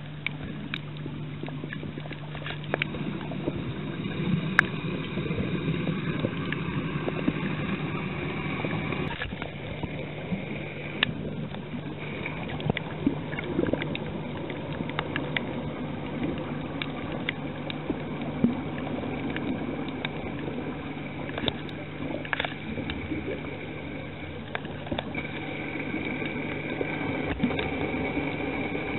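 Muffled underwater ambience recorded on a reef: a steady low hum under a rough hiss, with scattered sharp clicks and crackles.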